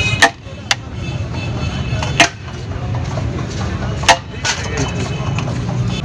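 Metal serving spoon knocking sharply against a large aluminium pulao pot, four knocks spread unevenly over a few seconds, over a steady low hum of busy street noise.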